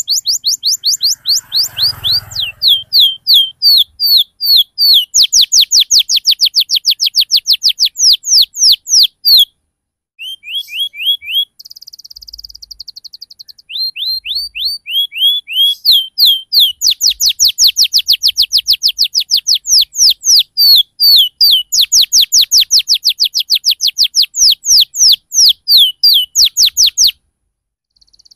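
Domestic canary singing long rolls of rapid, repeated downward-slurred chirps, several a second, with a short break and a softer buzzy trill about ten to thirteen seconds in, then stopping about a second before the end.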